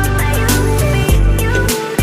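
Music with a deep bass line, a melody and regular drum hits.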